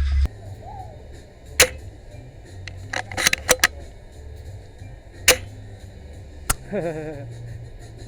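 Sharp clicks and snaps from a spring bolt-action airsoft sniper rifle (SSG10A1). There is a single snap about one and a half seconds in, a quick run of clicks around three seconds, and single snaps near five and six and a half seconds. A short wavering call is heard near seven seconds.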